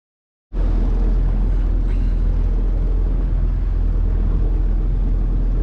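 Small fishing boat's engine running steadily while under way, a loud, even low rumble that cuts in about half a second in.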